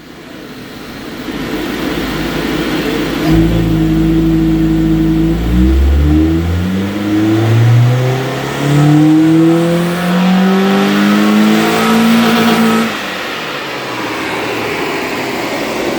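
Honda Civic's D-series 'mini-me' VTEC four-cylinder making a full-throttle dyno pull: engine pitch climbs steadily to high revs from about five seconds in, then drops off sharply about thirteen seconds in as the run ends, over a steady rush of noise.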